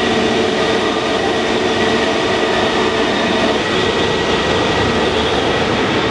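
Jet engines of taxiing airliners at idle thrust: a steady rushing hum with a thin high whine held above it, the whine fading near the end.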